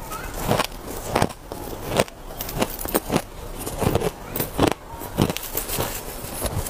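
Chunks of hard ice being crunched between the teeth, close to the microphone: a run of sharp, irregular crunches, about two a second.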